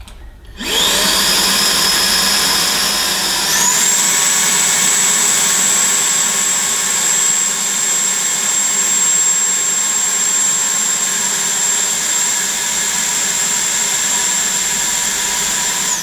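Tineco Pure One S12 cordless vacuum's motor running with the pre-filter cleaning attachment fitted, spinning the pre-filter to shake the dirt out of it. The motor starts with a rising whine about half a second in, the high whine steps up in pitch about three and a half seconds in, and then it runs steadily.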